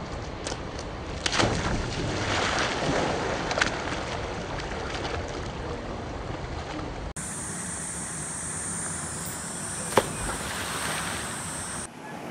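A chocolate Labrador retriever leaps off a rock ledge into creek water with a splash about a second in, then splashes and sloshes for a few seconds as it swims with the ball. In the second half there is a steadier wash of outdoor water noise, with one sharp click near the end.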